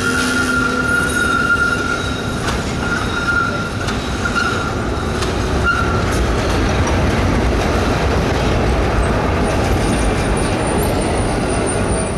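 Milan street trams running on rails set in cobbles: steel wheels squeal in a steady high tone on and off through the first five seconds, then the rolling rumble grows as a tram passes close by. A thin, very high squeal comes in near the end.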